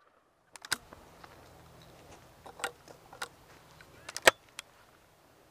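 A shotgun being handled just after firing: a scattered series of short, sharp metallic clicks and clacks, the loudest about four seconds in, as the gun is opened and reloaded.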